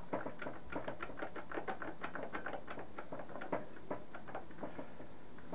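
Quick, irregular run of small metallic clicks and clinks, about five a second, from a British Seagull outboard's propeller and its fittings being handled and worked onto the propeller shaft.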